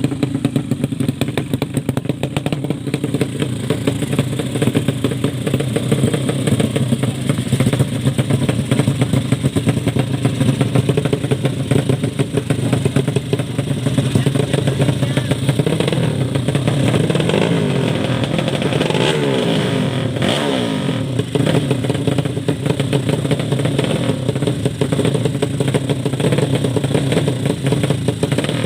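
Underbone drag motorcycle engines running loudly and steadily. Around the middle, the engine pitch sweeps up and down a few times as a bike revs.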